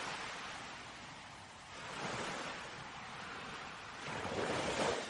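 Ocean waves, a sound effect: a steady hiss of surf that swells about two seconds in and again near the end.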